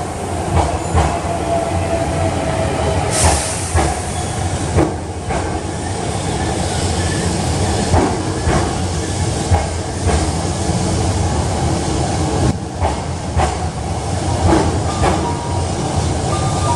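Hankyu 8300-series electric commuter train pulling into an underground station platform: a continuous rolling rumble with scattered clicks of the wheels over rail joints. A sharp hiss of air comes about three seconds in.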